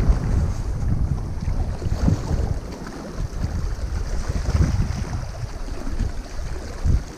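Wind gusting against the microphone, a low rumble that rises and falls unevenly, with the sea behind it.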